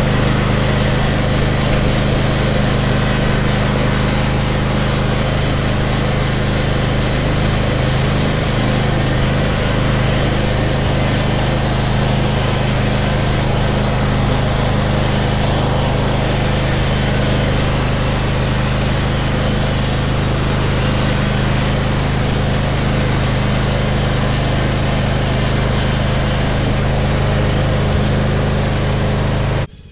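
Riding lawn mower's small gasoline engine running steadily while the mower is driven across the grass. The sound stops abruptly at the very end.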